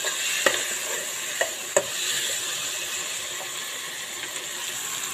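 Chopped onions and tomatoes sizzling steadily as they fry in a steel kadai. A metal spoon clicks against the pan three times in the first two seconds as the mixture is stirred.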